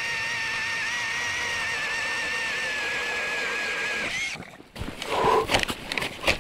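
Cordless drill turning a Tonar Motoshtorm 130 ice-auger through the ice: a steady motor whine that sags slightly in pitch under load, then rises briefly and stops about four seconds in. After a short pause come a few irregular knocks and scrapes.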